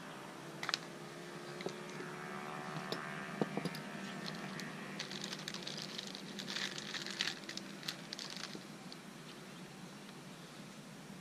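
Small clicks and taps from hands handling fishing-reel parts, then a few seconds of crinkly rustling like plastic packaging being handled.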